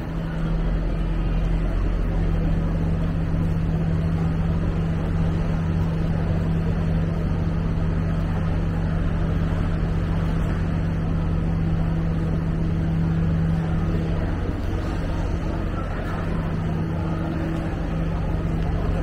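Steady low hum of motor traffic close by, with a deep rumble underneath and an unbroken engine-like drone.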